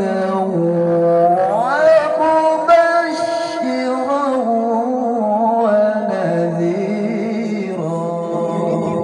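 A male qari reciting the Quran in melodic tilawah style, drawing out long held notes that glide and ornament up and down in pitch, with a rising glide about a second and a half in. The voice is amplified through a microphone and loudspeakers.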